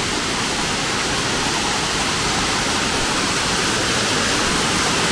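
Waterfall cascading down rock steps: a loud, steady rush of falling water, enough to drown out talk.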